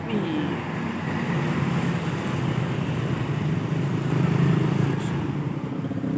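Diesel tour bus engine running as the bus comes down the road and passes close by: a steady low drone with road noise, growing louder as it approaches and loudest about four seconds in.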